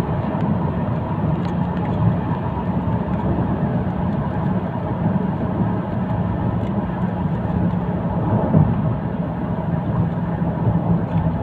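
Steady engine and road noise heard inside a vehicle cruising along a highway: a constant low hum under an even rush, with no change in speed.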